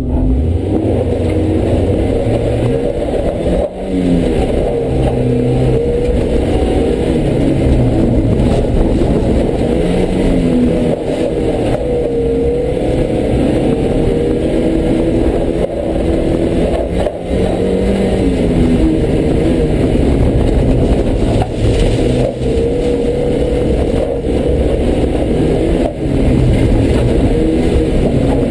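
Mazda Miata rally car's four-cylinder engine revving up and easing off repeatedly as it is driven hard around a dirt rallycross course, its pitch rising and falling, with brief dips about four seconds in and again about seventeen seconds in.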